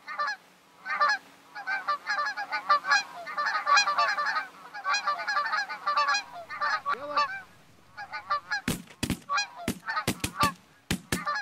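A flock of Canada geese honking as it comes in. About nine seconds in, a rapid volley of about ten shotgun shots, with honking between the shots.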